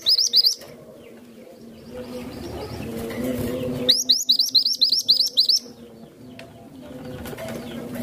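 Caged female minivet (mantenan gunung) singing in quick bursts of high, rising chirps, about eight a second: a short burst right at the start and a longer one from about four seconds in. Doves cooing low in the background between the bursts.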